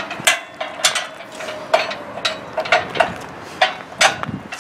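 Metal retaining rod being slid through the mounting holes of a hand truck's steel front attachment, clinking against the frame in a string of sharp metallic clicks, the first few followed by a brief ring.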